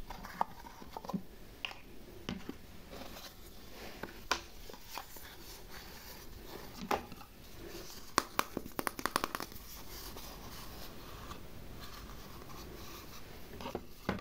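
Hard plastic toy food pieces handled and set down on a plastic tray: scattered clicks, taps and scraping, with a quick run of clicks a little past the middle.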